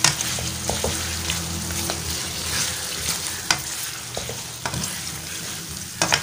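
Raw chicken pieces frying in ghee in a karahi with onion, tomato and green chillies, sizzling while a slotted spatula stirs them. Scattered clicks and scrapes of the spatula against the pan, the loudest near the end.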